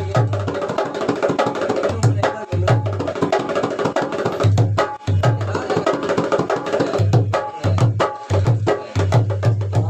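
Dholak played in a quick rhythm, deep booming strokes on the bass head mixed with sharp slaps on the treble head, as its tone is tried out.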